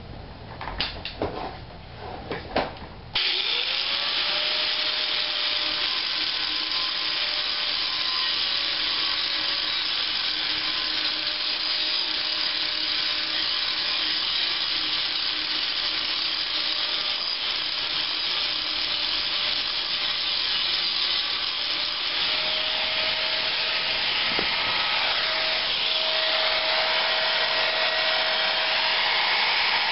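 A few knocks, then about three seconds in an angle grinder starts, spins up and runs steadily, grinding the last glue residue of the old surround off the subwoofer frame's outer rim.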